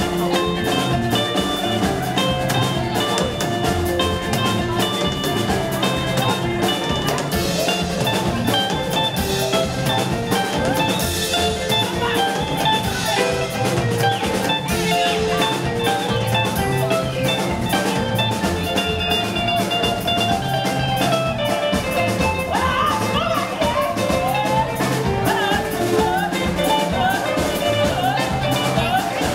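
Live band playing dance music: marimba, electric guitar, bass and drum kit over a steady beat.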